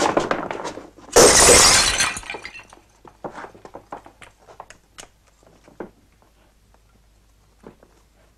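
Glass shattering in one loud crash about a second in, followed by scattered tinkles and clinks of falling pieces over the next few seconds.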